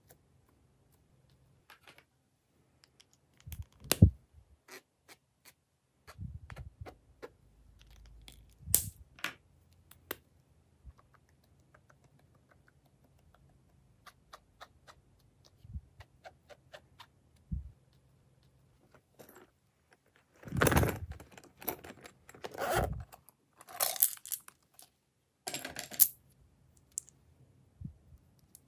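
Small plastic charms clicking and clattering as they are handled and set down. There are scattered single taps, then a busy run of clattering about two-thirds of the way through.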